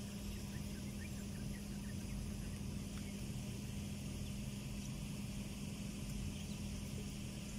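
Steady outdoor background with a constant low hum and faint even noise; no distinct event stands out.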